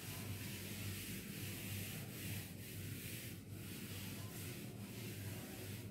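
Blackboard duster rubbing across a chalkboard, wiping off chalk in repeated faint strokes over a steady low hum.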